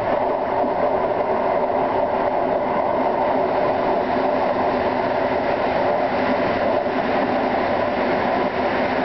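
Steady running noise of a train moving along the track, heard from the front cab, with a faint steady drone under it.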